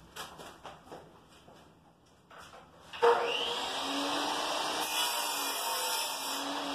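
Electric tile saw switched on about three seconds in, its motor spinning up and then running steadily. Before that, a few faint knocks.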